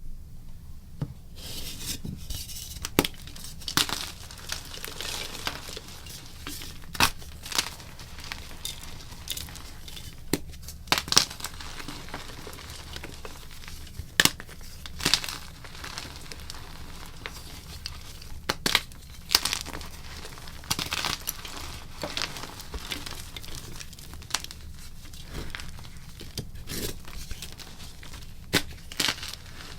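Blocks of gym chalk being crushed and crumbled: a steady crumbly crackle broken by irregular sharp snaps as pieces break.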